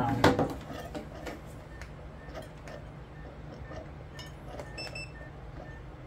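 A sharp plastic clack as a Dewalt 20V cordless tool battery and its adapter are handled on a wooden workbench, followed by light handling clicks over a low steady hum. A faint short beep comes near the end.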